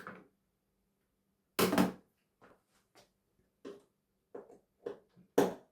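A sharp double knock about one and a half seconds in, then a run of lighter clicks and taps and one loud knock near the end: tools and parts of a broken television handled as it is taken apart.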